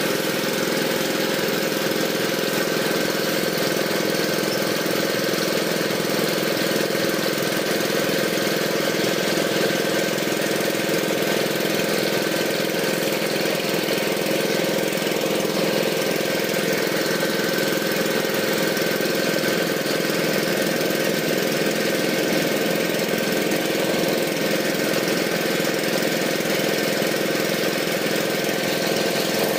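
A small engine running steadily at one constant speed, with no change in pitch or level.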